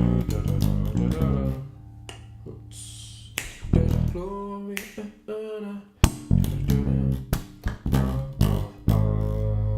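Gospel band music with a prominent bass guitar line of low sustained notes, punctuated by sharp drum hits.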